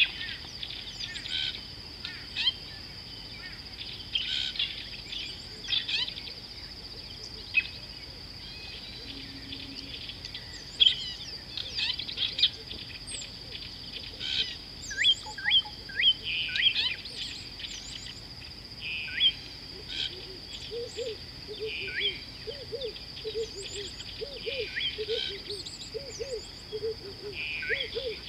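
Wild birds chirping and whistling in short calls over a steady high-pitched hum. From about twenty seconds in, a repeated low call joins, roughly two notes a second.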